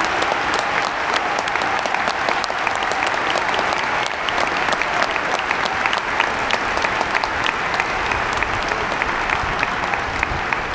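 Crowd applauding: dense, steady clapping made of many overlapping hand claps.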